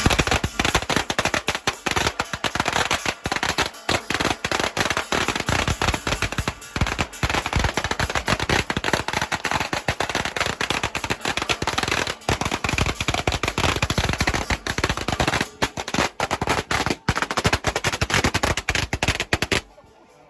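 A long string of firecrackers going off in a rapid, continuous crackle of bangs for almost twenty seconds, then stopping abruptly.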